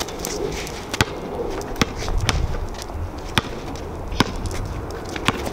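Basketball dribbled on a concrete driveway: about six sharp bounces, roughly one a second.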